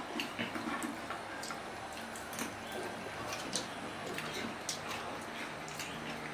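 Spoons clinking and scraping against bowls and a clay pot during a meal, with soft eating sounds: scattered light clicks at irregular intervals over a faint steady hum.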